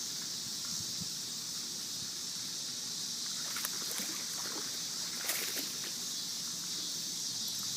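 Steady high-pitched insect chorus, with a few faint clicks and rustles about halfway through.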